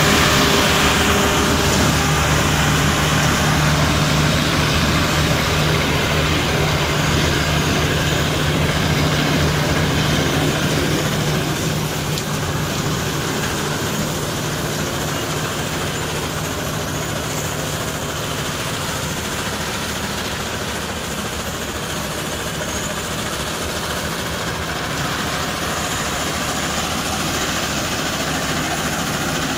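Claas Crop Tiger 40 mini combine harvester running steadily under load, its engine hum mixed with the constant rush of the threshing and straw-handling machinery. It gets slightly quieter about twelve seconds in.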